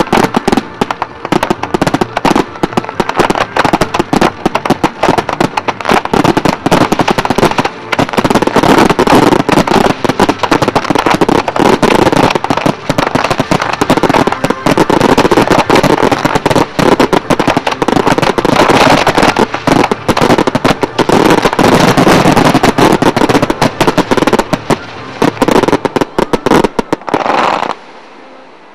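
Aerial fireworks going off in a dense barrage: a continuous rapid crackling of crackling-star shells mixed with bangs. It drops away sharply near the end.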